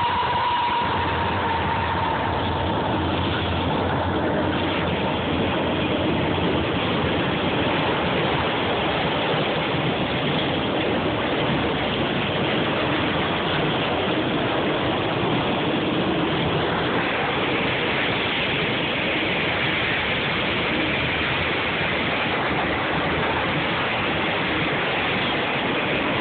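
Freight train of enclosed autorack cars rolling past close by: a loud, steady noise of wheels on rail. A high tone fades out in the first couple of seconds.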